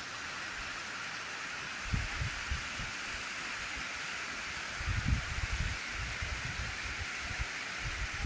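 Heavy rain falling steadily, heard as an even hiss, with a few short low bumps about two seconds in and again around the middle.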